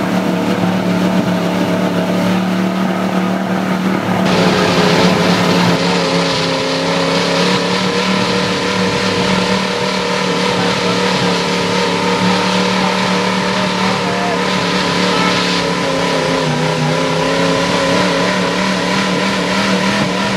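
Engine of a heavily modified 1979 Ford Bronco running hard under load as it crawls over deep mud mounds, its pitch rising and falling with the throttle.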